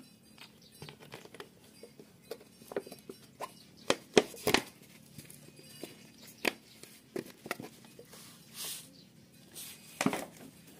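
Scattered light clicks and taps of plastic bottles and caps being handled while fuel and oil are mixed for a two-stroke engine. The taps come in irregular clusters, loudest around four seconds in and again near the end.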